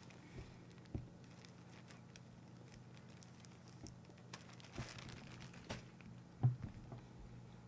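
Chewing a whole dried scorpion pepper: small dry crunches and crackles, thickest about four to six seconds in, with one louder thump about six and a half seconds in, over a steady low hum.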